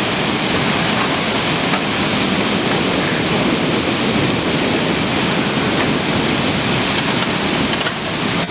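River water pouring over a weir and churning in the white water below, a steady loud rush; the Vesdre is running high on a release from the Eupen dam.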